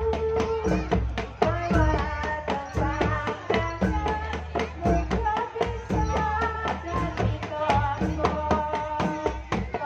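Live Javanese jaranan music: rapid kendang drum strokes driving a dense rhythm under a held and sliding melodic line.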